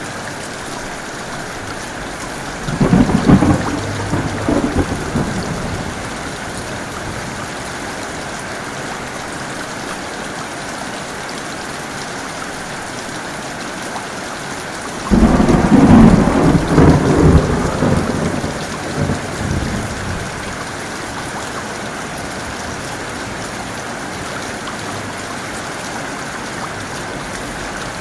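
Heavy rain falling steadily, with two claps of thunder: a short one about three seconds in, and a louder one that breaks suddenly about halfway and rumbles on for several seconds.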